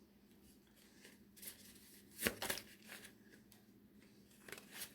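Oracle cards being shuffled by hand: faint, scattered soft card flicks and taps, the sharpest a little past two seconds in and a few more near the end.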